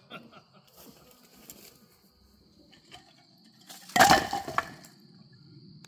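Old rotten wooden deck boards thrown onto a pile of boards in a fire pit. They land with a burst of clattering, knocking wood lasting about a second, a little before the end.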